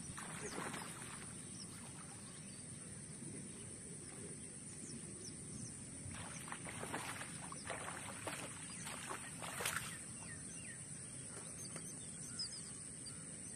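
Rural outdoor ambience over open paddy fields: a steady high-pitched drone, with faint bird chirps now and then. A cluster of brief scuffing or rustling noises comes about six to ten seconds in.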